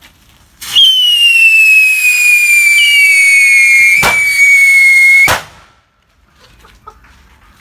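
Whistling firework rockets burning: a shrill whistle that slowly drops in pitch, with a second whistle joining about two seconds in. There is a sharp crack about three seconds later, and another as the whistling cuts off suddenly about five seconds in.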